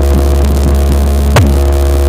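Eros Hammer 7.2K subwoofer (3600 W RMS) in a car sound-system box playing a loud, steady, deep bass tone. A short click with a quick downward sweep comes about one and a half seconds in.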